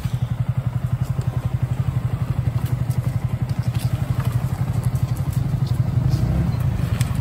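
Yamaha single-cylinder motorcycle engines (R15 V3 and FZ) running at low revs with a fast, steady pulse as the bikes move slowly past. One engine's note rises briefly about six seconds in.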